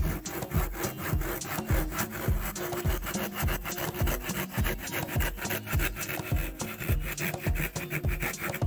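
Handsaw, freshly sharpened with a saw file, cutting through a block of wood in rapid, even back-and-forth strokes.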